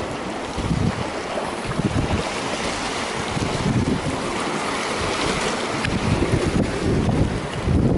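Wind gusting on the microphone with irregular low rumbles, over the steady wash of sea waves.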